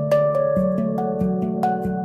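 Calm new-age relaxation music: soft sustained notes stepping through a slow melody over a low held note.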